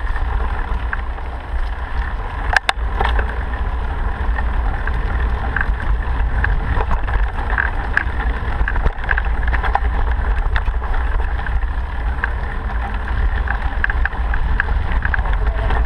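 Steady low rumble and rushing noise of a vehicle moving at speed down and up a dip in the road, with scattered small rattles and a sharp knock about two and a half seconds in.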